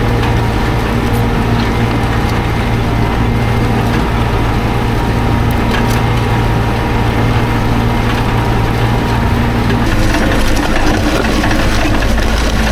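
Tractor engine running steadily under load while ploughing, over a rough grinding noise; its note changes about ten seconds in.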